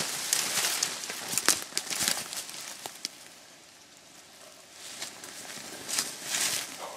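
Rustling and crackling of dry leaves and brush being disturbed, with a few sharp snaps or clicks in the first couple of seconds, a quieter stretch in the middle, then more rustling near the end.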